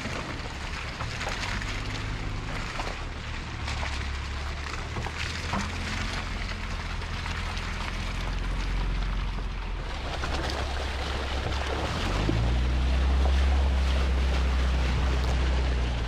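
Jeep Wrangler driving slowly along a muddy forest trail: a low engine hum, with tyres on leaf litter and branches crackling against the body. It gets louder near the end.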